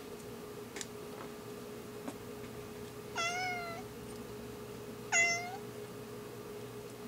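Domestic cat meowing twice, about three and five seconds in, the second call shorter. A steady hum and a few faint clicks of small parts being handled lie underneath.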